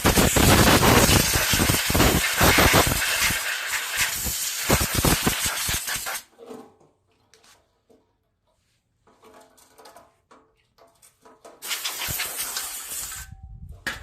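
Compressed air blasting in a long hiss for about six seconds, then stopping, with a second shorter blast near the end, blowing mouse-nest debris out from behind a small engine's shroud.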